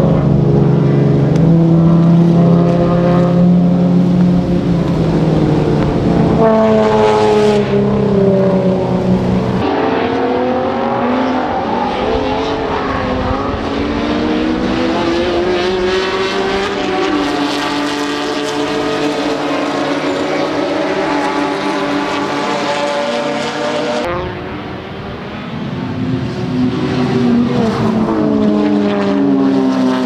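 GT300 touring race cars, Genesis Coupe 3.8 V6 and Veloster N turbo types, running at speed past the trackside microphone, their engine notes rising and falling in pitch as they accelerate, shift and go by. The sound changes sharply several times, about 6, 10 and 24 seconds in, as one pass gives way to another.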